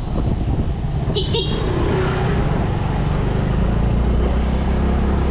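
Yamaha 125 cc scooter engine running steadily at low speed, with road and wind noise. A brief high-pitched beep sounds a little over a second in.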